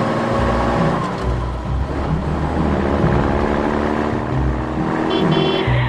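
A cartoon car engine sound effect, running steadily with slowly shifting pitch, over background music.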